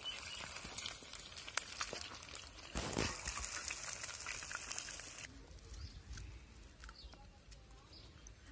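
Chicken feet deep-frying in hot oil in an iron kadai: steady sizzling and crackling, briefly louder about three seconds in. The sizzle stops abruptly about five seconds in, leaving quieter background with a few faint bird chirps.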